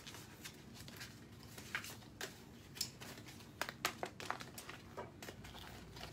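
Clear plastic packaging crinkling and rustling in the hands as a die set's paper card is slid in and out of its sleeve. It is faint, with scattered small sharp crackles and a quick cluster of them about three and a half to four and a half seconds in.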